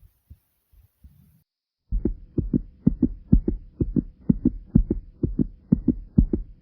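Fast heartbeat, lub-dub pairs at about two beats a second. It is faint for the first two seconds, then suddenly much louder.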